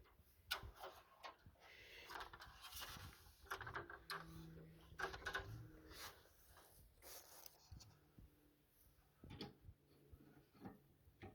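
Faint scattered knocks, clicks and rustling of someone moving about and handling things.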